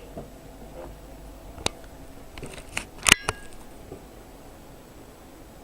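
Laptop keyboard keys pressed a few times, single sharp clicks with the loudest about three seconds in.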